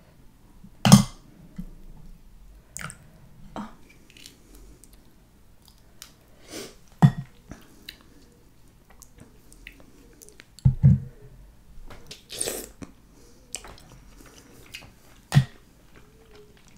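Close-miked eating sounds: mussel shells and food handled in a glass bowl of sauce give scattered sharp clicks and taps, the loudest about a second in, twice midway and near the end, with chewing in between.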